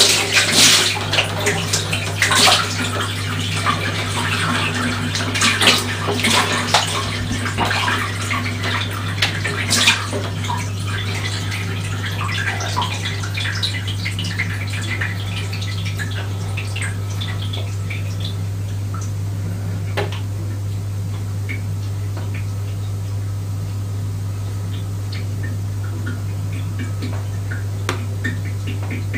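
Water sloshing and dripping in a bathtub, busiest in the first ten seconds and then down to occasional drips, over a steady low hum.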